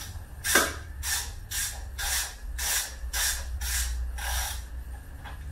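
Ratchet wrench clicking in about eight short strokes, roughly two a second, as the oil drain plug on an outboard motor is being unscrewed.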